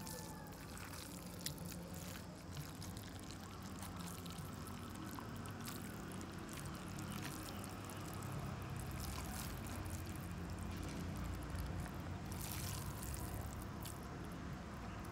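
Kitten eating rice from a steel bowl: small scattered chewing and licking clicks over a steady low background rumble.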